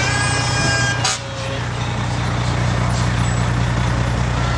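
Parade fire trucks' engines running at walking pace, a steady low drone, with a higher whine over it that stops at a short click about a second in.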